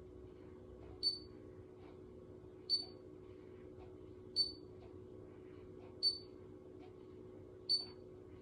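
Babyliss Lasting Waves automatic hair curler beeping while it heats a section of hair: five short, high, identical beeps at an even pace of about one every second and a half, marking the curling time. A faint steady hum lies underneath.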